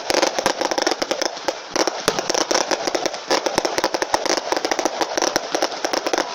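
Fireworks going off in a dense, rapid crackle of many small pops and bangs, without a break.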